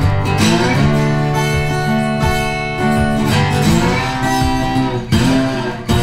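Background music played on a plucked guitar, its notes ringing on.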